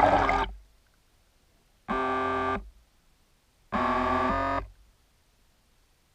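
Music of held synthesizer chords with near silence between them. One chord fades just after the start, then two more sound about two seconds apart, each lasting under a second.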